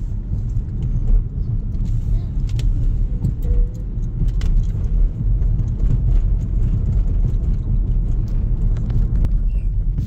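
Steady low rumble of a car's engine and tyres on the road, heard from inside the cabin while driving, with a few faint clicks or rattles.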